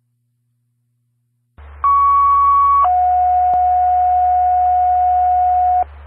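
Two-tone sequential fire paging tones over a dispatch radio channel, starting about a second and a half in: a higher tone held for about a second, then a lower tone held for about three seconds, with a low hum under the transmission. It is the alert that sets off a fire company's pagers ahead of a dispatch.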